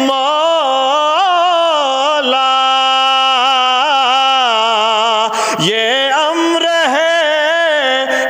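A man's unaccompanied voice singing a devotional qaseeda, drawing out a wordless melodic line with long held notes and quick ornaments. A long steady note gives way to a brief break about five and a half seconds in, and the ornamented line then carries on.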